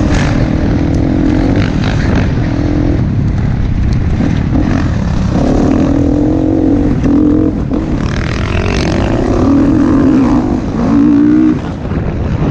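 Dirt bike engine heard from onboard, running hard, its pitch rising and falling with the throttle, with a brief drop in loudness near the end.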